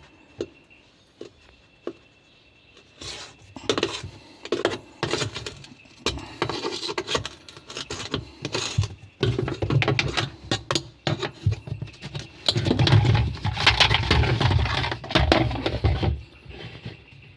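Irregular clatter, knocks and scraping of hard objects being handled while a washing machine is cleaned by hand, with a busier stretch of rubbing or scrubbing about twelve seconds in.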